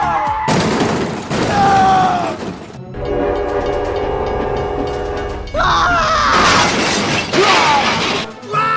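A horn sounding a held chord of several steady tones for about two and a half seconds, a few seconds in. Stretches of loud noise with gliding tones come before and after it.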